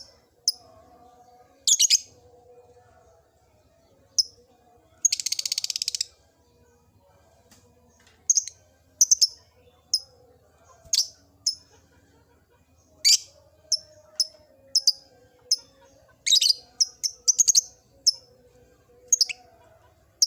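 Lovebird giving sharp, high chirps, one or a few at a time at irregular intervals, with one rapid buzzing trill about five seconds in that lasts about a second.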